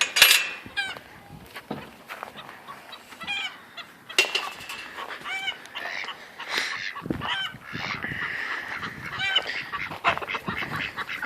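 Domestic ducks quacking, several short calls in quick runs repeating throughout.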